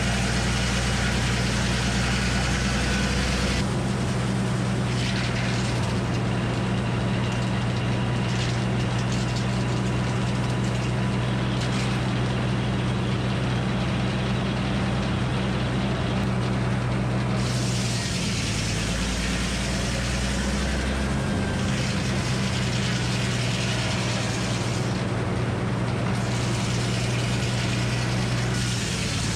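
Frick circular sawmill running steadily while its big circular blade saws a red oak log on the carriage. The machine sound shifts several times as the carriage feeds through the cut and comes back.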